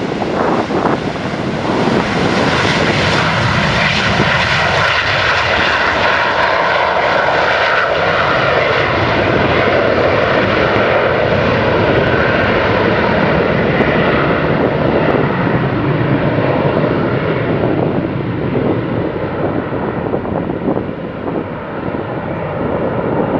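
Boeing 727-233's three Pratt & Whitney JT8D turbofan engines at takeoff power as it lifts off and climbs away: a loud, steady jet noise whose high end slowly fades as the aircraft recedes.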